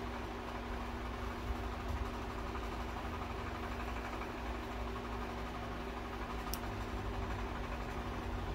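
Steady low hum of room noise, a machine-like drone with a held tone, and one faint click about six and a half seconds in.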